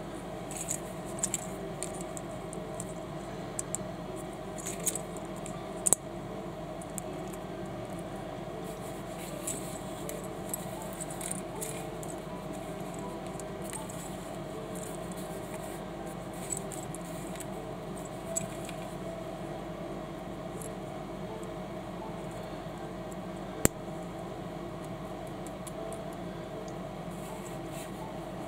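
Small plastic Panlos building bricks clicking and clattering as they are handled and pressed together, with a few sharp clicks, most in the first six seconds and one more about 24 seconds in, over a steady low hum.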